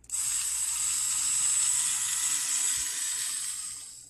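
Homemade mini drill's small electric motor switched on and running with a steady high-pitched hiss and whine, then winding down over the last second.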